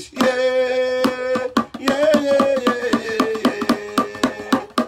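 A man chanting in a long held, wavering note over quick, even strokes of a small hand drum beaten with a stick.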